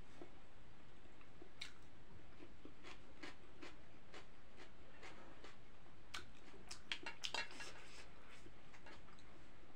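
Chewing of noodles mixed with light clicks of a metal spoon and fork against a plate, with a cluster of louder clinks about seven seconds in.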